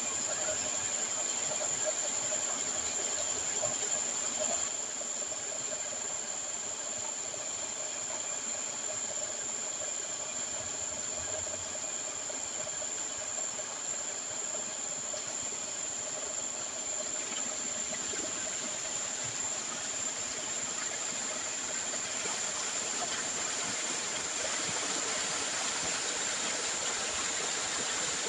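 Muddy slurry from gold-processing drums pouring out of discharge pipes through cloth filter bags into a concrete settling box: a steady rushing hiss of water. A steady high whine runs under it.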